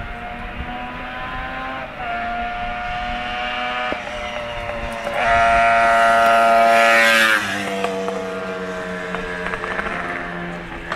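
Racing motorcycle engine at full throttle on the straight, its note climbing between gear changes as it approaches, loudest as it passes close by, then dropping sharply in pitch and fading as it goes away.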